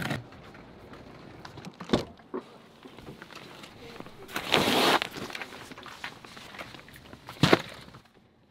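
Handling sounds of someone walking to a pickup truck: a few knocks and steps on asphalt, a plastic bag rustling for about half a second midway, and a sharp click near the end as the truck door is opened.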